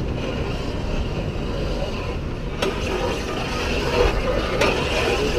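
Vekoma suspended coaster train rolling slowly along its overhead steel track with a steady rumble, and two sharp clacks about two seconds apart past the middle.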